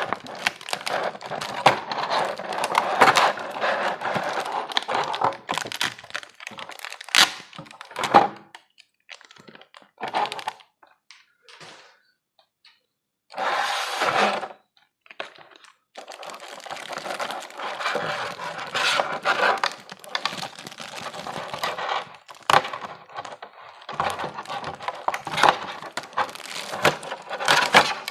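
Packaging being handled and opened by hand: a dense run of crinkling, crackling, tearing and clicking. There is a lull in the middle, broken by one short burst of rustling, before the handling picks up again.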